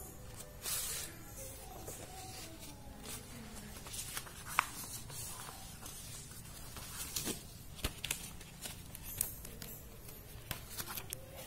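Paper and card being handled by hand: chart paper rustling and scraping as it is folded, pressed flat and slid over a plastic mat, with a few sharp taps and clicks.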